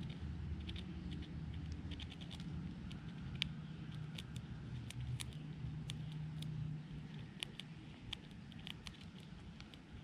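Eastern chipmunk cracking and nibbling sunflower seed hulls close to the microphone: quick, irregular little clicks and crunches, several a second, over a low rumble that fades about seven seconds in.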